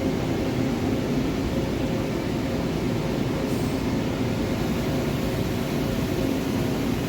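Forest-Line MajorMill 5-axis CNC gantry mill running with a steady machine hum and a couple of faint steady tones while its X-axis traverses slowly.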